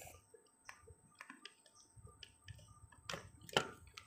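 Faint, scattered light clicks and taps from multimeter test probes being handled against a TV remote's circuit board, with two sharper clicks near the end.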